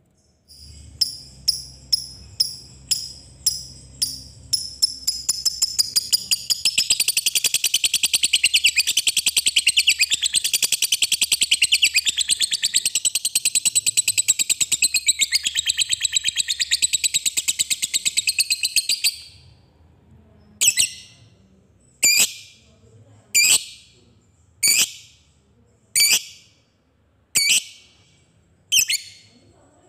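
Lovebird calling. It starts with spaced sharp ticking chirps that quicken, then runs into one long, rapid, unbroken chatter (the "ngekek"), which stops suddenly about two-thirds of the way in. After that it gives single sharp chirps about every second and a half.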